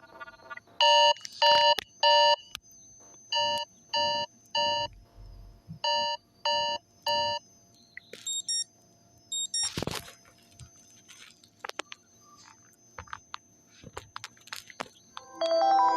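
Sony Xperia L4 smartphone alert tone through the phone's speaker: three groups of three quick chime-like beeps, followed by two short higher beeps. A sharp click comes a little past the middle, then a few faint taps.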